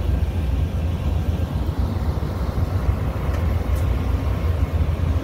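Amtrak Superliner passenger cars of the departing Coast Starlight rolling past with a steady low rumble of wheels on rails, and a couple of faint clicks about three and a half seconds in.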